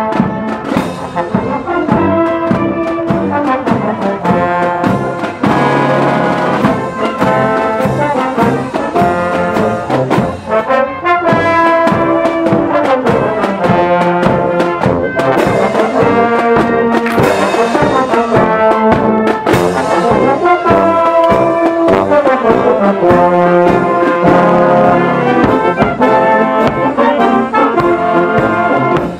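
Marching brass band playing a march outdoors: trumpets and trombones carry the tune over a steady beat of snare and bass drums.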